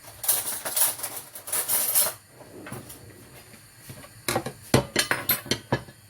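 Kitchen dishes and utensils being handled: about two seconds of scraping noise, then a quick run of clinks and knocks near the end.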